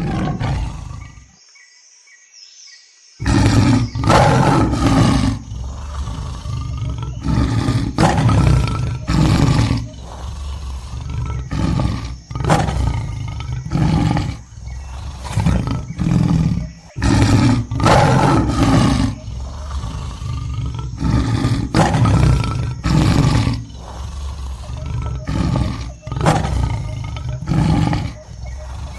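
Tiger roaring and growling in a long series of loud roars, one about every second, after a brief quieter stretch near the start.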